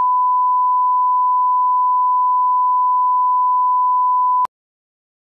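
Broadcast line-up test tone, a steady pure 1 kHz sine tone played with the colour bars at the head of a TV commercial master. It cuts off abruptly about four and a half seconds in.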